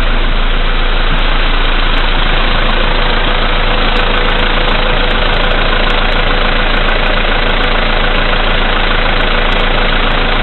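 Volkswagen Polo Sedan's CFNA 1.6-litre four-cylinder petrol engine idling steadily after a cold start, with a knock in the engine. The knock is the fault being recorded on an almost new engine.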